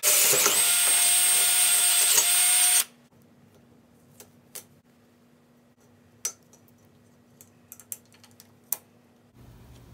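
Cordless drill boring through a thick metal post, running steadily for about three seconds with a brief dip in speed near the start and again just before it stops. Then only a few faint clicks and taps.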